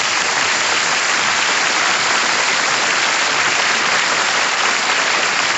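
Large audience applauding, steady and loud.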